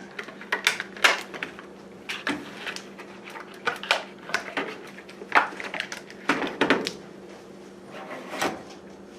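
Irregular clicks and knocks of tools and objects being handled and set down on a workbench, over a faint steady hum.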